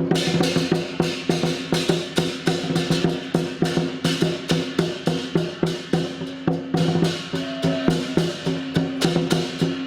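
Lion dance percussion ensemble, drum with cymbals and gong, playing a fast, steady beat of about four or five strokes a second over a continuous metallic ring.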